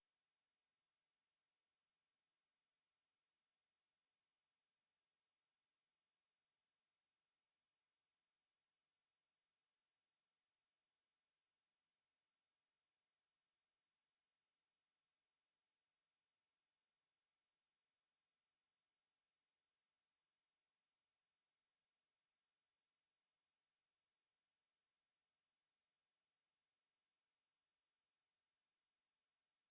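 A 7637 Hz sine-wave speaker test tone: one pure, very high-pitched tone, held steady and unchanging.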